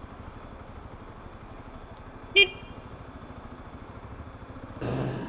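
Sinnis Hoodlum 125cc single-cylinder motorcycle engine ticking over, with one short, loud horn toot about halfway through and a burst of rushing noise near the end.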